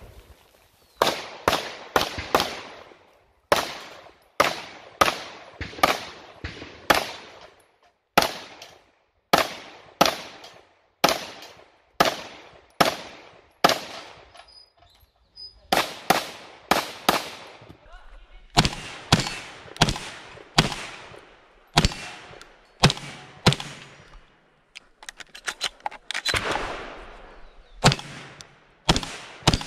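Rapid competition gunfire: dozens of pistol shots in quick pairs and strings, with short pauses, then shotgun shots near the end. Each shot cracks and rings out briefly with echo.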